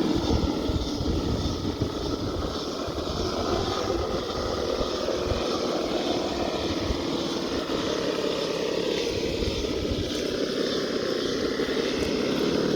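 Axial SCX10II Deadbolt RC rock crawler's electric motor and geared drivetrain whining steadily as it crawls up a rock face.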